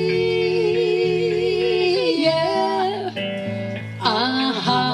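Live acoustic folk performance: women's voices singing in harmony over acoustic guitar. A long held note with vibrato ends about two seconds in, the guitar carries on briefly, and the voices come back in with a sliding note near the end.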